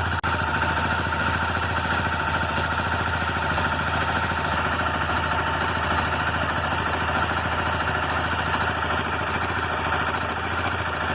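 Motorcycle engine idling cold with a steady cam-chain rattle that sounds almost like a loose valve: the cam chain tensioner actuator is backing off and letting the chain slap.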